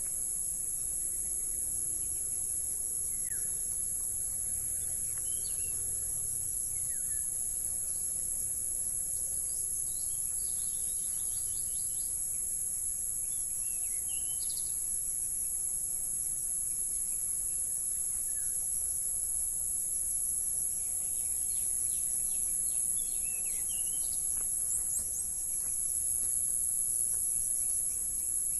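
Steady high-pitched insect chorus, with short bird chirps now and then.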